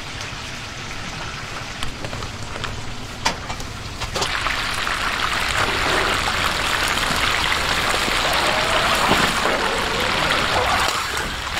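Hot oil sizzling as chicken deep-fries, a dense steady crackling hiss that grows louder about four seconds in.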